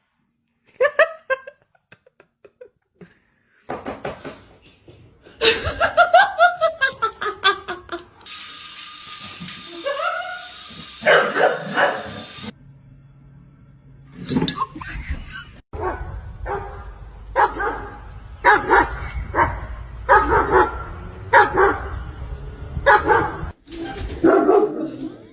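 Dog barking: a run of short barks about one a second through the second half, after other pitched calls with gliding pitch in the first half.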